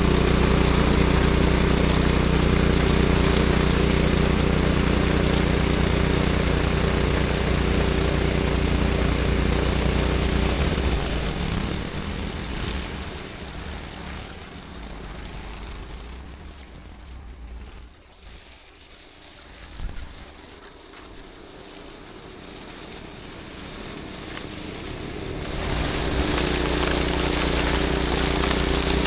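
Snowblower engine running steadily, fading to faint about twelve seconds in and growing loud again near the end. A short thump about twenty seconds in.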